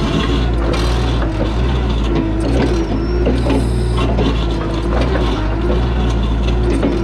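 Toyota 2SDK8 skid steer's diesel engine running hard while its hydraulics work a Bradco 9MD2 backhoe attachment. The engine note dips and recovers again and again as the hydraulics are loaded, and clanks and knocks come from the digging bucket and the linkage.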